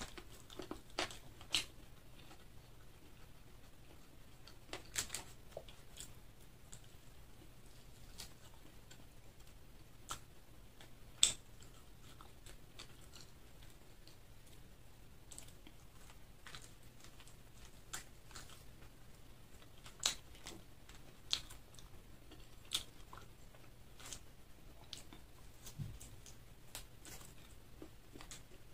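Crispy KFC fried chicken being torn apart by hand and chewed: irregular sharp crunches and crackles, a few of them louder, over a faint steady low hum.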